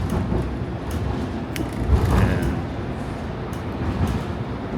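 Streetcar running, a steady low rumble with scattered clicks and rattles and one sharp knock about one and a half seconds in.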